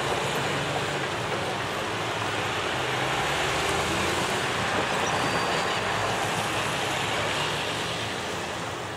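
Steady road traffic noise from a car passing close by, tapering off near the end.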